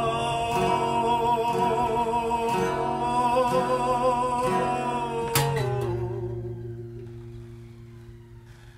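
A man sings one long wavering held note over steadily strummed acoustic guitar. About five and a half seconds in the voice stops with a last sharp strum, and the guitar chord rings on, fading away.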